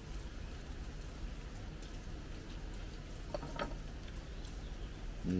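Soft scattered clicks and crackles of rambutan rinds being split and peeled open by hand and with a knife, over a steady low background hum.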